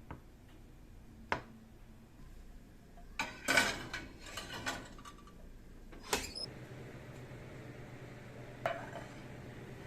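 Kitchen handling sounds: utensils and dishes knocking and clinking, with a few single sharp knocks and a busier clatter about three to five seconds in. A low steady hum comes in after about six and a half seconds.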